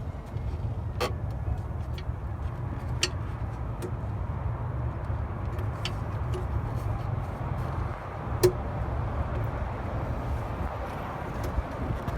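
Steady low rumble of motor vehicles, with a few sharp clicks from parts being handled; the loudest click comes about eight seconds in.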